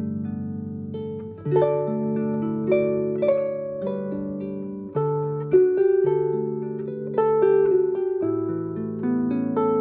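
Background music on a plucked string instrument: notes and chords struck in turn, each ringing on after it is plucked.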